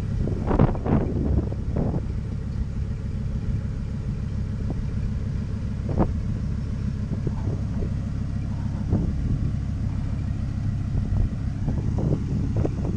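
A car engine idling steadily, with a few short knocks about half a second to two seconds in, near six seconds, near nine seconds and near the end.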